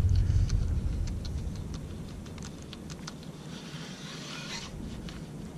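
Baitcasting reel ticking lightly and irregularly as the handle is turned to work a lure, with a brief rustle about four seconds in.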